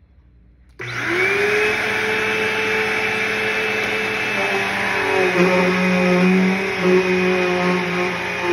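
Red bagless upright vacuum cleaner switched on about a second in, its motor whining up to speed and then running steadily. Its tone shifts slightly after about five seconds.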